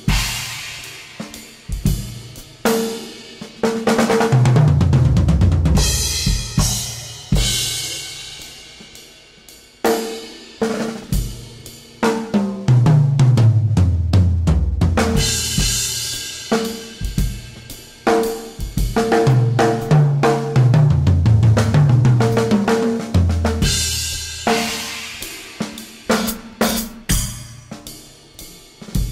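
Freely improvised drum-kit playing: scattered snare, bass-drum and tom strokes with crash cymbals that swell and ring out. Low held notes step up and down in pitch underneath.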